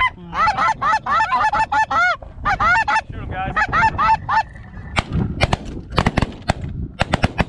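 Snow geese calling in a rapid chorus of high, yelping honks, then a volley of about ten shotgun shots in quick succession from several hunters firing at the incoming flock, starting about five seconds in.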